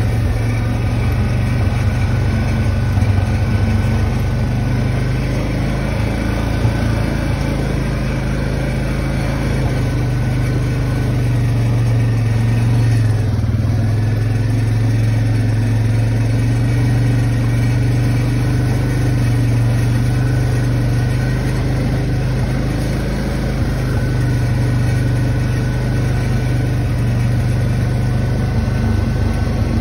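ATV engine running steadily while the four-wheeler is ridden along the trail. The engine note briefly dips and then recovers about halfway through.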